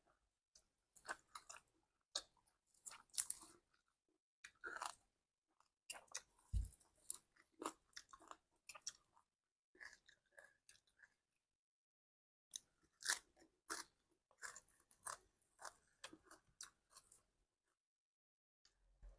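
Close-miked eating: a person chewing and crunching mouthfuls of green papaya salad and raw vegetables, in irregular crisp crunches and wet chews. There is a brief pause near the middle and a single dull bump about six and a half seconds in.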